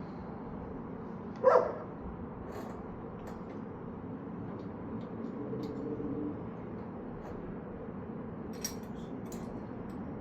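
A dog barks once, about one and a half seconds in, over a steady low background hum, with a few light clicks near the end.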